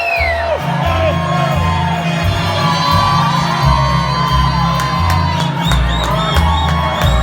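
Loud music with a pulsing bass line that comes in about half a second in, under a crowd cheering, whooping and shouting.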